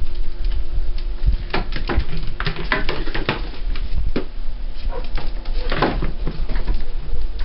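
Six-week-old border collie puppies play-fighting over a tug toy: short puppy growls and yips mixed with scattered knocks, busiest a couple of seconds in and again about six seconds in.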